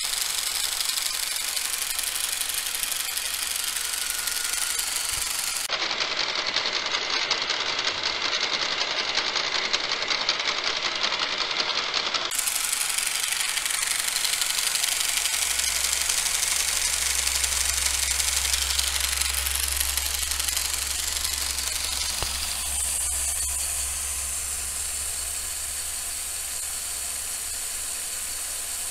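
LEGO Power Functions electric motors whirring, with the plastic gears and the mock engine's pistons of a motorized LEGO Technic 42078 Mack truck clattering. It is a steady high-pitched whir and rattle, with a low hum joining it for several seconds in the middle.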